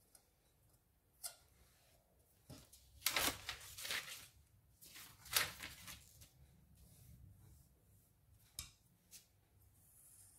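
Sheets of paper being handled and slid across a tabletop, with noisy rustling in the middle stretch and its loudest moments a few seconds in, plus a few light knocks.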